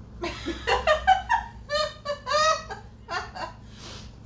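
Women laughing in a string of short, high bursts lasting about three seconds, followed by a brief breathy sound near the end.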